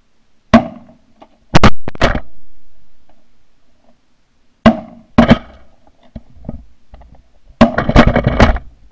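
Shotguns firing in a volley at passing Canada geese: a single blast under a second in, a quick pair and another shot around a second and a half to two seconds in, two more about halfway, and a dense run of shots near the end. The shots are very loud and close, heard from right on one gun.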